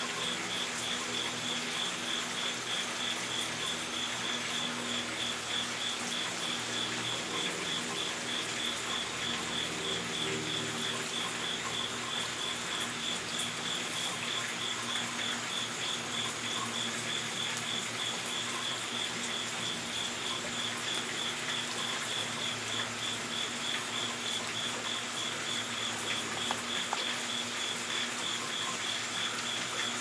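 An insect chirping steadily: one high-pitched note repeated in an even, rapid pulse. It sits over a constant background hiss.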